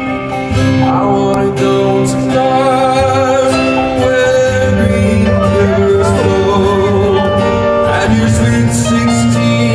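Live band music heard from the crowd: sustained keyboard chords over bass guitar in an instrumental stretch between sung lines.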